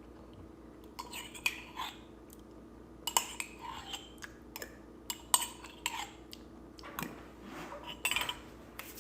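Eating utensil clinking and scraping against a dish in a string of short, sharp clinks, over a faint steady hum.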